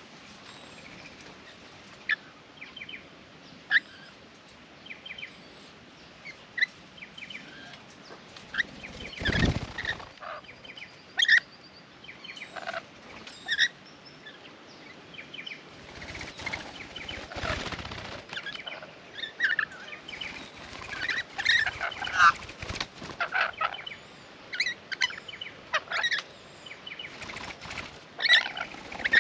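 Rainbow lorikeets chattering and screeching in many short calls, busier in the second half, with louder rustling flurries about nine and seventeen seconds in.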